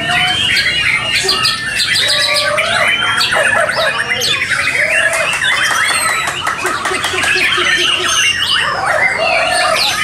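Many caged white-rumped shamas (murai batu) singing at once, a dense overlapping jumble of whistled glides and quick notes.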